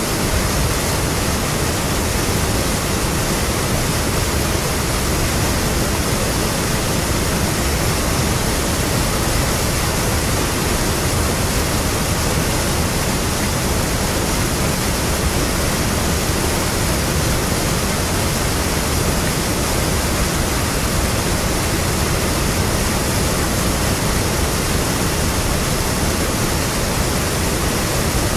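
River water pouring over a mill weir and crashing into foaming water below: a loud, steady rush with no change.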